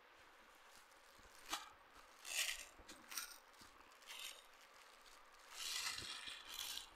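A clear plastic garment bag crinkling in short rustling bursts as a folded suit is handled and pulled out of it. The longest stretch of crinkling comes near the end.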